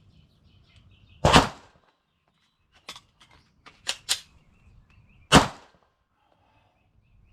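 Two AR-15 rifle shots about four seconds apart, with a quick series of metallic clicks and clacks between them from a reload and working the rifle's action.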